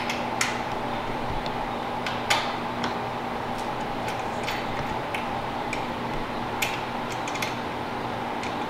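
Scattered small clicks and knocks from a 40-inch LED light bar being shifted by hand in its loosely bolted roof-rack mounts to centre it, over a steady hum.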